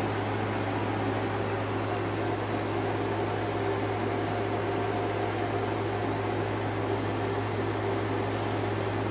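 Steady mechanical hum of a running fan or motor: an even low drone with a few fainter, higher steady tones over a soft rushing noise.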